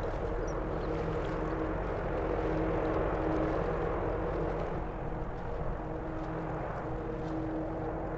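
Large LNG-powered container ship passing close by: a steady rushing wash with a low hum, growing a little louder in the middle.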